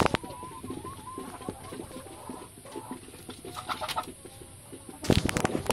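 Chickens clucking, with many small clicks and knocks around them and a cluster of loud knocks about five seconds in.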